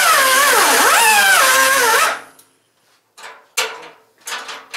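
Air-powered cut-off wheel cutting through steel, a loud whine that sags and recovers as the disc bites, stopping about two seconds in. A few short bursts from the air tool follow.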